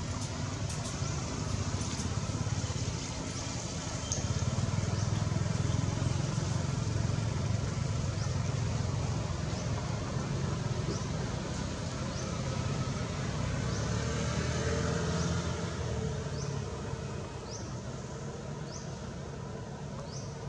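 Low rumble of a motor vehicle, swelling and then fading over the second half. A short, high, rising bird chirp repeats about once a second from about halfway through.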